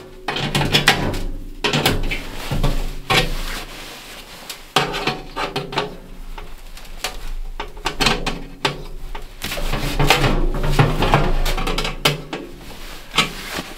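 Pliers working the crimped end of a thin black steel stovepipe section: irregular metallic clicks, clanks and scrapes as the sheet metal is squeezed and bent.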